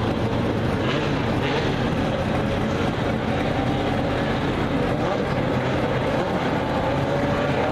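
A pack of four-cylinder Super Stock dirt-track race cars running together, their engines blending into a steady drone with a few engine notes gliding up and down as the cars go around.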